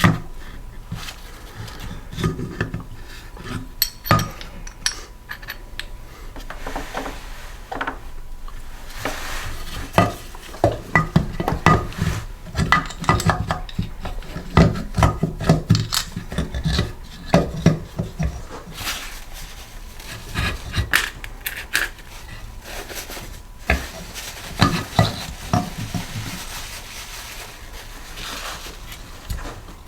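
Metal engine parts and hand tools being handled on a workbench during a small-engine teardown, giving irregular clinks, knocks and clatter that come thickest in the middle stretch.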